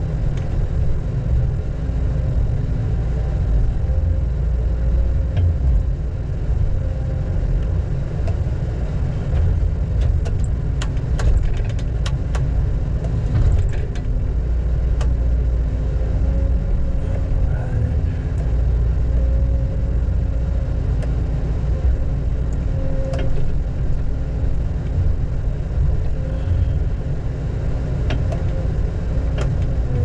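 Diesel engine of heavy logging equipment running steadily with a low drone, with scattered clicks and knocks in the middle stretch.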